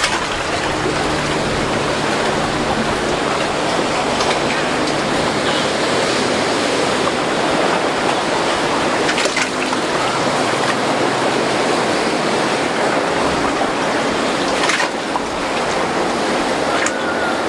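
Breaking waves and whitewater rushing steadily around a center-console boat running through rough inlet chop, with a few sharper splashes.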